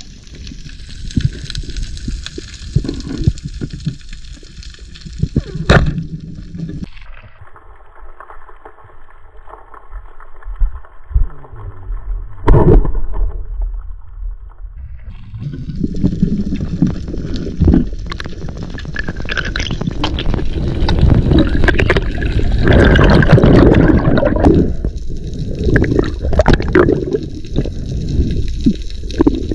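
Water noise on an underwater camera during a spearfishing dive: rushing and gurgling water with a couple of sharp knocks, the loudest about twelve seconds in. It goes quieter for a few seconds, then turns into louder, churning water for the rest.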